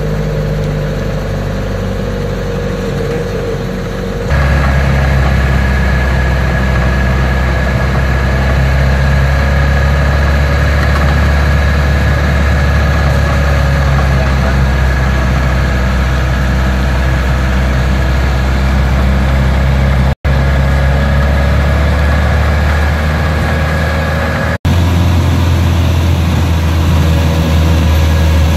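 Microbus engine running under load, heard from inside the cabin as a steady low drone with a thin whine above it. It steps up louder about four seconds in and breaks off for an instant twice.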